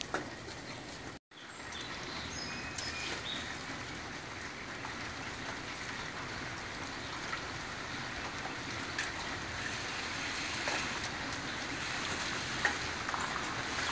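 Steady rain falling on wet gravel and puddles, with runoff water running over the ground. The sound cuts out briefly about a second in.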